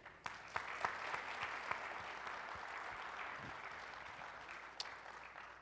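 Conference audience applauding, dying away gradually toward the end.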